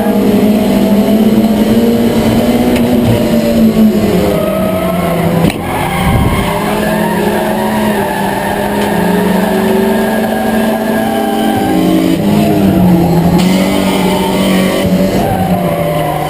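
Ford Escort's four-cylinder engine running hard under race conditions, heard from inside the cockpit, its pitch rising and falling with the throttle through the turns. About five and a half seconds in there is a brief sharp break in the sound.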